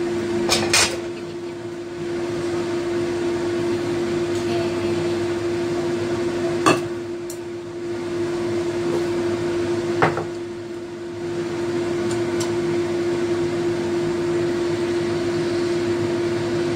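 Steady hum of a fan motor holding one tone, with a few sharp clicks: a pair about half a second in, then single ones at about seven and ten seconds.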